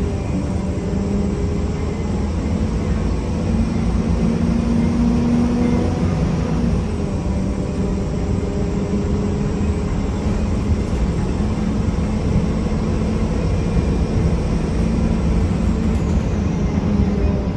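1993 Gillig Phantom transit bus running with its Cummins ISM diesel and Allison B400R transmission, with a steady low rumble and a loud grinding noise that the rider suspects comes from the transmission. A thin high whine falls in pitch near the end.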